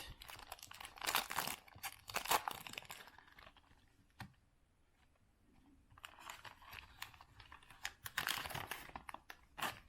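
Wrapper of a baseball card pack being torn open and crinkled, in scratchy bursts for the first three seconds and again from about six seconds in, with a lull and a single click in between.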